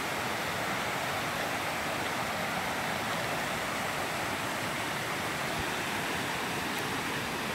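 Steady rush of a rocky mountain river running in white-water rapids over boulders.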